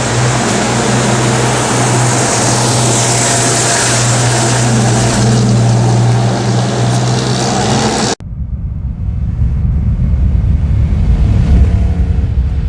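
Engine of a 1949 GMC 250 pickup running steadily, with a low hum and a hiss over it. About eight seconds in, the sound cuts abruptly to a lower, rumbling engine sound.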